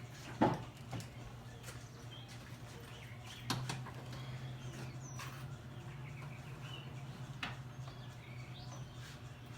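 A sharp knock about half a second in and another about three and a half seconds in, from hand work on the car, over a steady low hum, with a few faint bird chirps.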